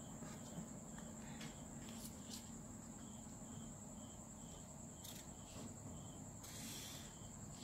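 Faint scratching of a felt-tip marker drawing along a plastic ruler on paper, with a few soft clicks of the ruler. Behind it run a steady high whine and faint short chirps repeating two or three times a second.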